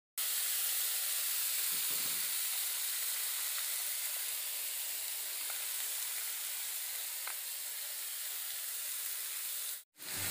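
Steady sizzle and hiss of freshly washed, still-wet yardlong beans frying in hot coconut oil in a frying pan. The sound drops out briefly near the end.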